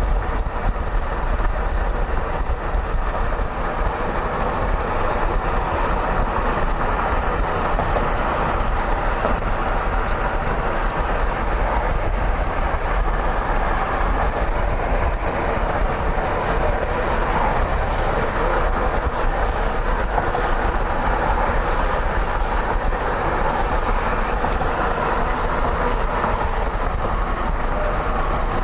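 Steady road and tyre rumble of a car driving at speed, heard from inside the cabin.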